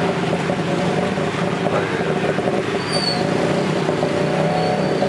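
Tuk-tuk's small engine running steadily under way, heard from inside the open passenger cab, its pitch wavering slightly near the end.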